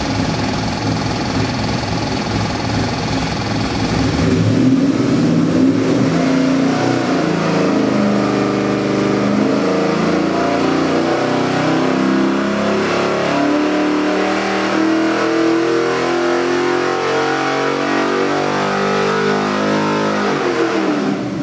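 Stroked 376 cu in GM Gen 4 LS V8 on an engine dynamometer, idling, then about four seconds in going to wide open throttle for a sweep pull under full load. The engine pitch climbs steadily from about 3,000 to over 6,000 rpm, then drops off sharply just before the end.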